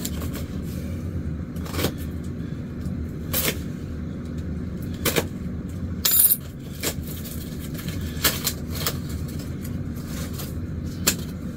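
A long cardboard shipping box being handled and opened: scattered crackles, taps and knocks of cardboard and packing, with a brief tearing rasp about six seconds in, over a steady low hum.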